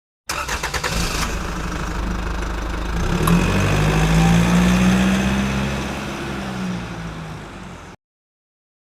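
Car engine sound effect: it starts abruptly with a rapid pulsing, settles into a low steady engine note that grows louder through the middle and then fades, and cuts off suddenly about a second before the end.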